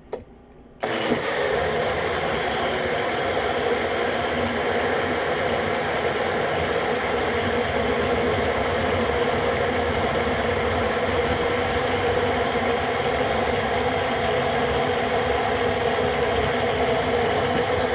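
Countertop blender running steadily, blending a thick fruit-and-vegetable smoothie; it starts abruptly about a second in.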